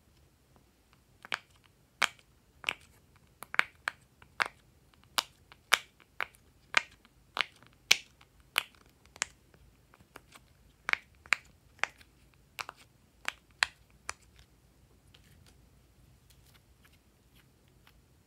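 Bubbles of a silicone pop-it fidget toy being pressed in one at a time: about twenty sharp pops, one or two a second, stopping about 14 seconds in.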